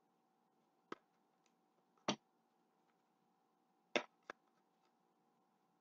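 A knife tapping against a spice jar of onion powder: four sharp knocks, irregularly spaced, the last two close together. A faint steady hum sits underneath.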